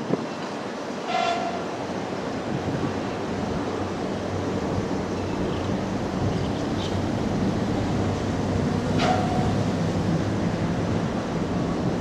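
Kintetsu electric train approaching, its rumble slowly growing louder, with two short horn blasts, one about a second in and one about nine seconds in.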